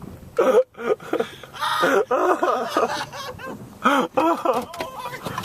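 A man's voice laughing hard, a string of short laughs one after another.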